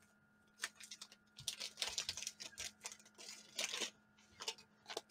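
Faint, irregular crinkling and crackling of a trading card pack's wrapper being worked and pulled open by hand.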